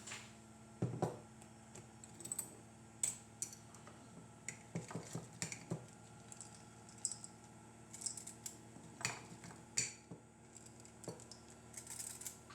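Irregular light clinks and knocks of dishes and kitchen utensils, with a few louder knocks among them, over a faint steady hum.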